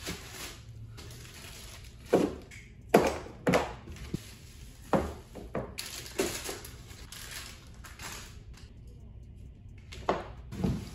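Plastic-bagged kit parts being lifted out of a cardboard box and set down on plastic floor tiles: a string of irregular knocks and thunks, about eight in all, with crinkling plastic packaging between them.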